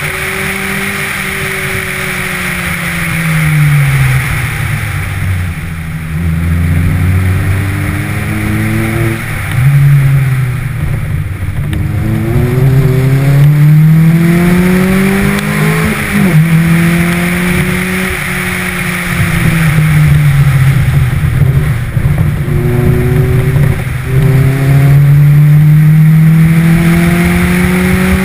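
Car engine pulled hard and eased off again and again while driven around a coned course. Its pitch climbs under throttle and drops back several times, over steady wind and road rush.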